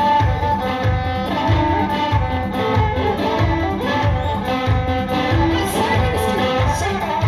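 Ethiopian traditional dance music played live: a heavy, steady drum beat about twice a second under krar and masenqo strings and a singing voice.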